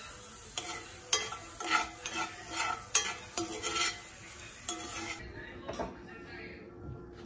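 Shredded red cabbage sizzling in a cast-iron skillet while a utensil stirs it, scraping and knocking against the pan about twice a second. The sizzle cuts off abruptly about five seconds in.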